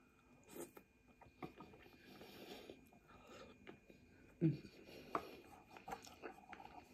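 Faint eating sounds from a mouthful of egg noodles being chewed, with wooden chopsticks clicking and scraping in the bowl. The loudest is a single knock about four and a half seconds in.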